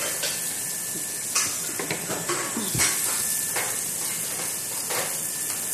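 Yardlong beans frying in oil in a frying pan under a glass lid, a steady sizzle with a few short pops scattered through it; the beans are nearly cooked.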